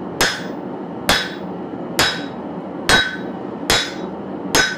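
Six hammer blows, a little under a second apart, on the top die of a blacksmith's guillotine tool, pinching a red-hot bar between mild-steel necking dies to forge down a knife tang. Each blow rings briefly off the steel, over a steady rushing noise.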